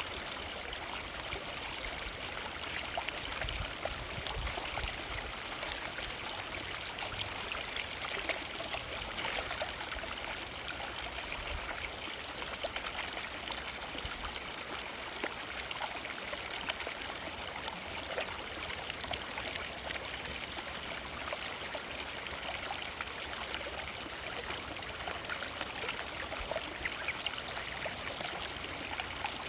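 Forest river flowing steadily over rocks, a continuous rushing and splashing of water.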